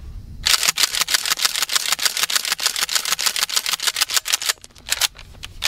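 Maverick 88 pump-action 12-gauge shotgun racked rapidly over and over, its slide clacking as it cycles mini buckshot shells through an OPSol Mini-Clip adapter and ejects them: a fast run of clacks lasting about four seconds, then one louder clack near the end. The mini shells feed and eject cleanly, without a jam.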